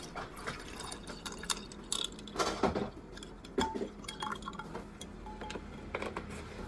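Juice poured from a carton into a glass over ice cubes, the liquid splashing as the glass fills, with sharp clinks of ice against the glass. The pour stops near the end.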